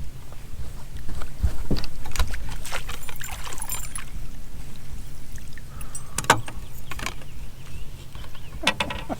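Water splashing and scattered knocks against a fishing boat, over a low steady rumble.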